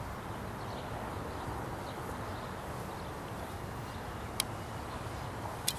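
Steady rushing noise of wind on the microphone, with two sharp clicks about a second apart near the end.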